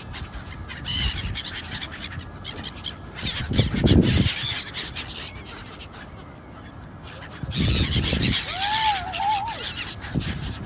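A flock of gulls calling over open water, with scattered cries and a few clearer arching calls about eight to nine seconds in. Wind on the microphone rumbles twice, loudest about four seconds in.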